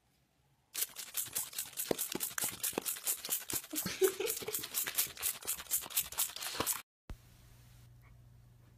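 Dog chewing fast, a steady run of crisp crunching clicks about four or five a second. It cuts off suddenly about seven seconds in, leaving a faint low hum.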